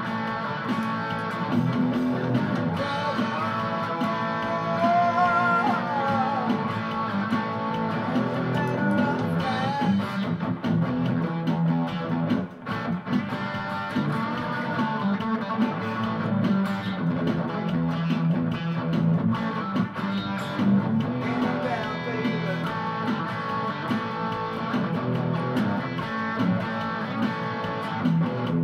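Electric guitar played through an amplifier in an instrumental passage of a rock song, over a fuller backing with steady low bass notes. The guitar plays melodic lead lines with some wavering, bent notes.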